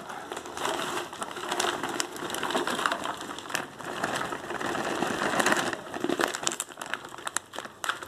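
Plastic bag of potting soil crinkling as it is tipped, with the soil pouring and rustling into a cut-open cardboard milk carton, full of irregular small crackles.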